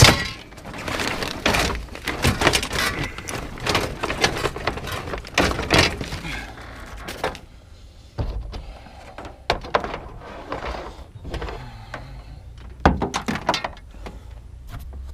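A heavy piece of scrap being dropped and worked into a gap in a loaded scrap pile: a loud thunk, then a run of knocks and clatter for several seconds, followed by a few separate knocks.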